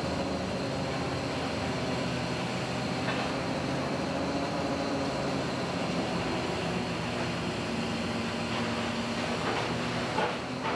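Steady drone of a commercial longliner's engine and deck machinery, with a few faint knocks, several of them near the end.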